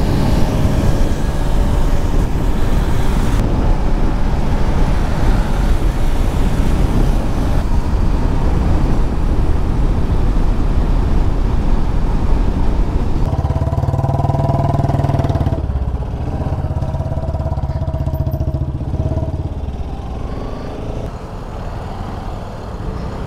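Bajaj Pulsar RS200 motorcycle being ridden at speed, with a steady rumble of engine and wind on the rider's camera. A steady humming tone comes through twice in the second half, and the noise eases a little near the end.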